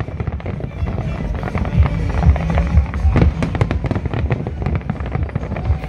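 Fireworks display with rapid, overlapping bangs and crackles and a deep low rumble, over music playing underneath.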